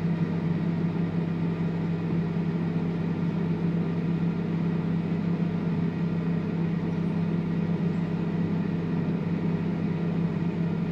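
Microwave oven running with a steady low hum as its timer counts down the last ten seconds of the heating cycle.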